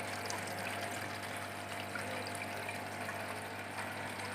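Water trickling and splashing steadily in a small water fountain, over a steady low hum.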